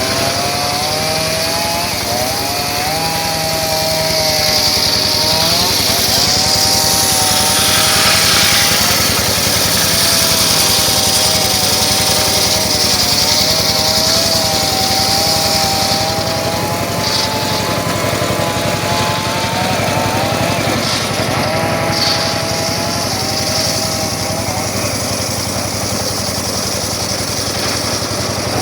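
Circular saw cutting through very hard sogho wood, running continuously. The blade's whine keeps dipping and recovering in pitch as it labours in the cut, over a steady hiss of sawing.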